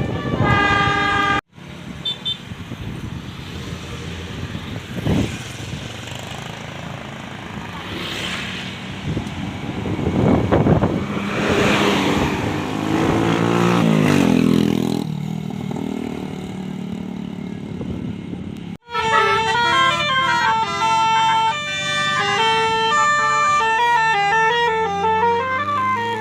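Bus telolet horn, a Basuri electric multi-tone horn, playing a quick stepping melody through roughly the last seven seconds, with a short snatch of the same horn tones cut off at the start. Between them is a long stretch of bus engine and traffic noise, with an engine rising in pitch near the middle.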